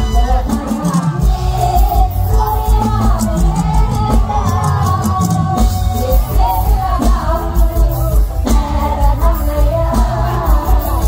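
Live mor lam band playing, with a woman singing into a microphone over a steady, driving drum beat.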